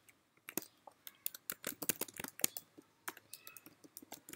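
Typing on a computer keyboard: an uneven run of quick key clicks, starting about half a second in.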